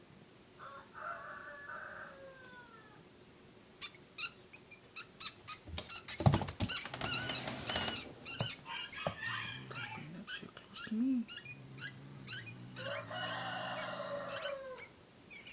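A cat scuffling with a baby rat: a run of quick knocks and scrapes with high squeaks, loudest in the middle. A drawn-out animal call sounds about a second in and again near the end.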